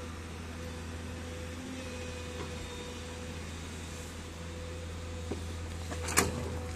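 Komatsu tracked excavator's diesel engine running steadily with a low drone and a thin steady whine as the bucket digs into rocky soil. A sharp knock comes about six seconds in, the loudest sound, as the bucket works the ground.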